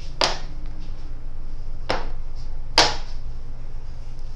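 Metal bench scraper chopping a log of walnut sablé dough into pieces, knocking on the granite countertop three times, the last knock the loudest.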